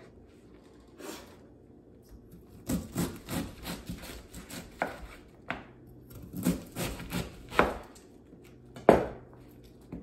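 Chef's knife slicing a head of green cabbage on a plastic cutting board: about a dozen crisp, irregular cuts, each ending with the blade knocking the board. They begin a couple of seconds in, and the loudest comes near the end.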